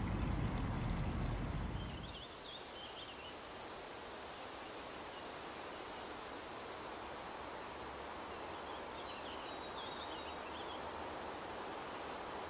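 Low road-traffic rumble that cuts off about two seconds in, giving way to steady woodland ambience: a quiet even hiss with scattered songbird chirps and a few short, high whistled notes.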